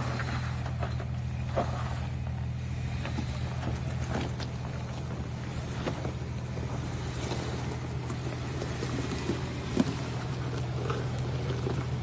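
Jeep Wrangler engine running steadily at low revs while the Jeep crawls over a rocky trail, with scattered crunches and knocks of rock and gravel under the tyres and one sharp knock about ten seconds in.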